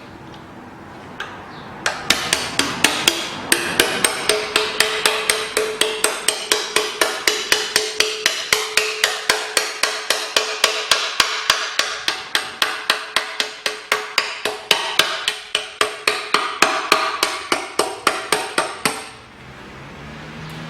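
Hammer striking an oil-pan separator knife into the sealant seam between the oil pan and the engine block, about three to four even blows a second, with a metallic ringing note. The blows start about two seconds in and stop near the end.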